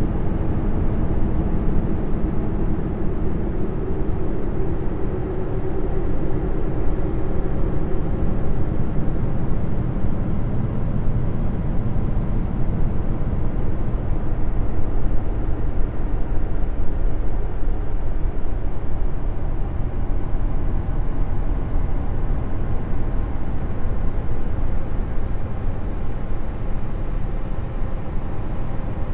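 Steady, low rumbling drone of noise, presented as the space 'sound' of Jupiter's moon Callisto. It is deepest and strongest in the bass, with a slightly fuller mid-low band during the first several seconds.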